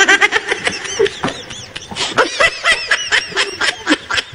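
Rapid, high-pitched cartoonish giggling, a run of short squeaky laughs several a second, pitched well above a normal voice, as in a sped-up laughter sound effect.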